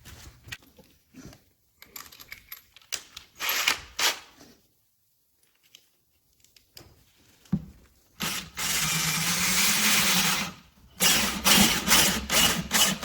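Cordless drill driving a fascia screw into a deck board: one steady run of about two and a half seconds starting around eight seconds in, then several short trigger bursts near the end as the screw is snugged down. A few handling clicks and knocks come earlier.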